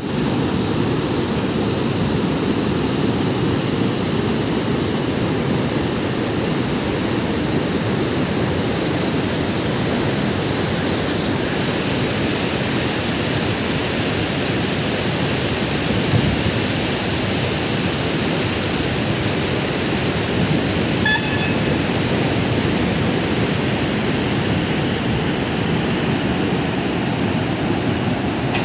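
Floodwater pouring through dam spillway gates and churning in the river below, a steady rush of water. About three-quarters of the way through there is a brief high-pitched chirp.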